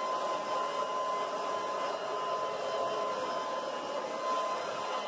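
Corded electric leaf blower running steadily: a constant whine over the rush of air.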